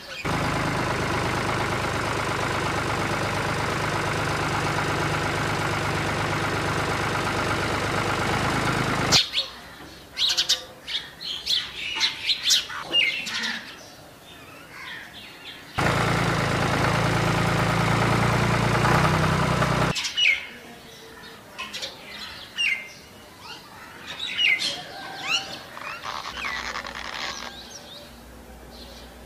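Small electric motor of a DIY miniature model tractor running with a steady hum for about nine seconds, then again for a few seconds midway. Between and after the motor runs, birds chirp.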